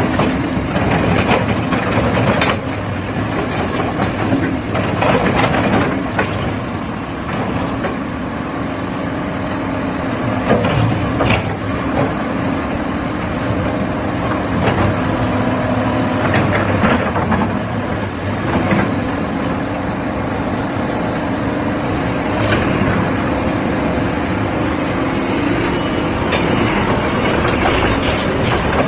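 Sany SY215C crawler hydraulic excavator running: a steady diesel engine hum with scattered metal clanks and knocks from the machine working.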